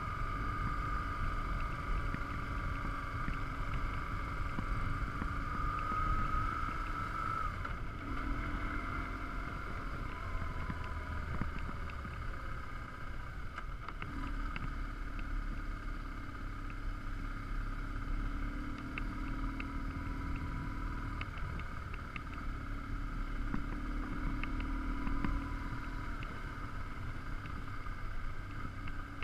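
BMW R1150GS Adventure's flat-twin boxer engine running on a gravel track. Its pitch dips and rises a few times as the throttle is rolled off and on, with small stones ticking against the bike.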